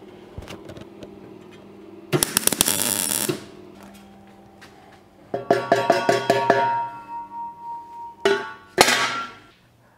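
A harsh crackling burst lasting about a second, then the welded stainless steel exhaust pipe being knocked and handled, clanking with a ringing metallic tone that hangs on for a couple of seconds. One more sharp clank comes near the end.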